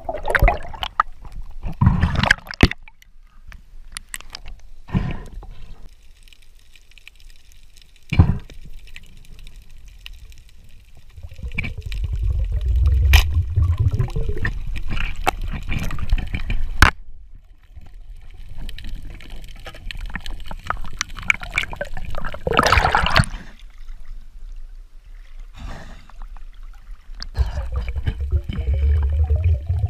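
Underwater sound picked up by a diver's camera: sloshing and gurgling water with swells of low rumbling and hissy bubbling bursts, and a few sharp clicks.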